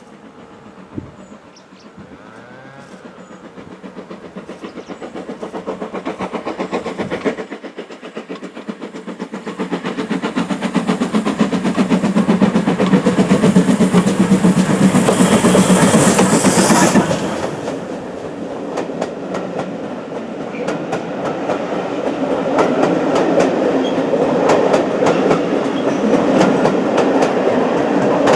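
GWR large prairie 2-6-2T steam locomotive 5199 and its train approaching and passing, growing steadily louder with a pulsing exhaust beat. At its loudest, about two-thirds of the way through, a high hiss stops suddenly, and the wheels then run on in a fast clickety-clack over the rail joints.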